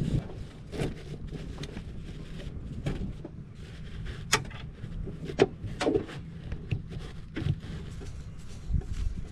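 Irregular clicks and knocks, like things being handled, the sharpest about four and a half and five and a half seconds in, over a steady low background hum.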